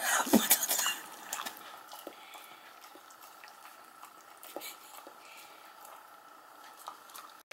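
A dog and a kitten licking and eating from a ceramic bowl: wet lapping and small tongue-and-bowl clicks, with a louder clatter in the first second. A faint steady high hum runs underneath.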